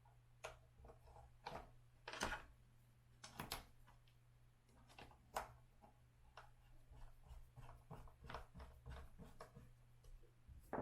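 Faint scattered clicks and taps of small screws, a screwdriver and hand tools on the board's parts as the rear foot pad is fastened to the rail, with the loudest knocks a little after two seconds and at about three and a half seconds.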